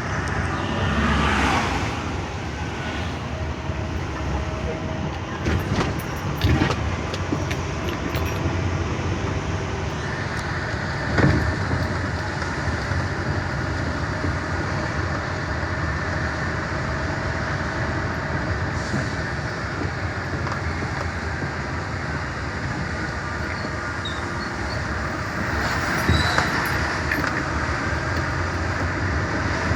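Truck driving, heard from the cab: a steady engine and road drone, with a few sharp knocks, the loudest about 11 seconds in, and swells of rushing noise near the start and near the end.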